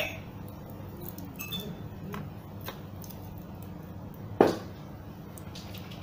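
Small plastic taps and clicks as hard-plastic alarm remote key fobs are handled and set down on a table, with one sharper knock about four and a half seconds in.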